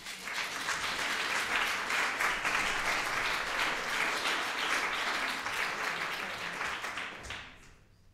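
Audience applause greeting a performer as he comes on stage, a dense, steady clapping that fades out about seven and a half seconds in.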